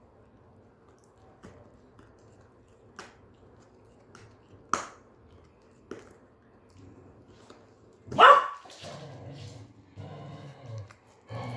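A Shetland Sheepdog gnawing a hollow cow-horn chew, its teeth making scattered sharp clicks on the horn. The loudest click comes a little before halfway. About eight seconds in a dog barks loudly, and more dog sounds follow.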